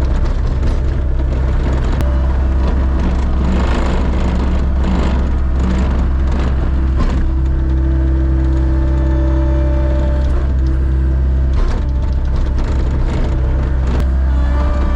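A vehicle engine running steadily at one speed with a low, even drone, with a few faint knocks over it.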